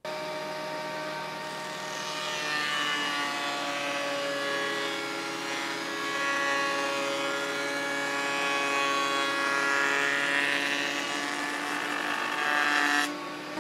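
Electric surface planer running with a steady whine and hiss while boards are fed across its cutterhead. The sound breaks briefly near the end.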